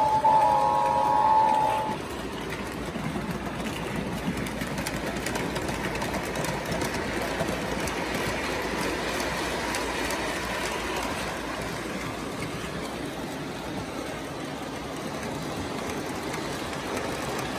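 O-gauge model passenger train rolling over three-rail track: a steady rumble and clatter of wheels. A horn chord of several tones sounds at the start and stops about two seconds in.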